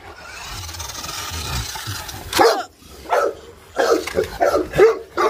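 A close rustling hiss for about two seconds, then a Dogue de Bordeaux giving a run of short barks, about half a dozen in the last three seconds.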